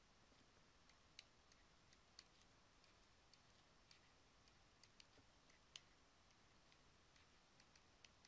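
Near silence with faint, irregularly spaced clicks of a stylus tapping on a pen tablet while writing.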